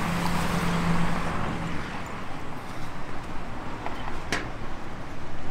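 Street traffic noise: a car passing, its engine hum fading after about two seconds. A sharp click comes a little past four seconds.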